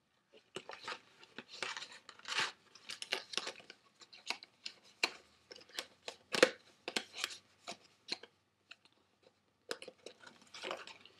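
Paper packaging crinkling and rustling as a cardboard gift box is handled, with irregular small crackles and taps.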